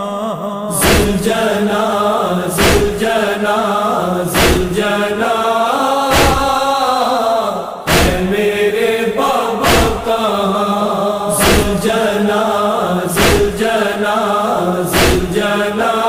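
Mournful Muharram noha chanting: voices drawn out in long, bending lines over a steady low tone, with a heavy thump about every second and three-quarters keeping the beat.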